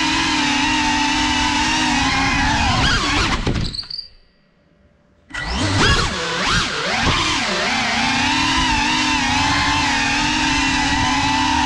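FPV quadcopter's brushless motors and propellers whining steadily, the pitch wavering as the throttle changes. About four seconds in the whine fades away to near silence for about a second and a half, then returns suddenly with quick rises and falls in pitch.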